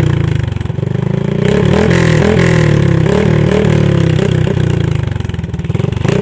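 Motorcycle engine breathing through a freshly fitted Daeng power pipe aftermarket exhaust, revved in quick repeated throttle blips, about two a second, each one rising and sagging back, during a loud sound test of the pipe.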